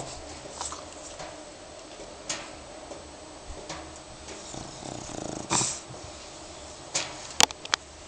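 French Bulldog snoring softly in its sleep, with one louder snore about five seconds in. Two sharp clicks near the end.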